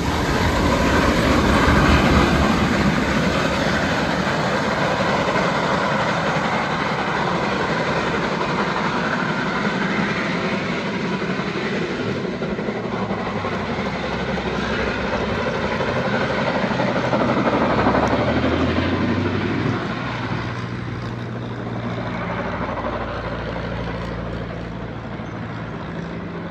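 Heritage trains passing beneath a bridge, the rumble and clatter of carriages on the rails loudest in the first few seconds and fading as they pull away. A low steady hum runs under it in the second half.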